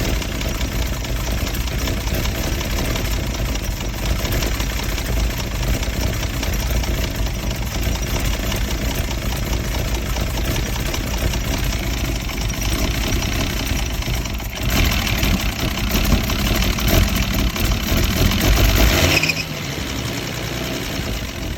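Mercedes-Benz W114 280CE's straight-six engine idling roughly, the uneven idle being the fault on show. About fifteen seconds in the sound gets louder and brighter for a few seconds, then near the end the low rumble drops away and it goes quieter.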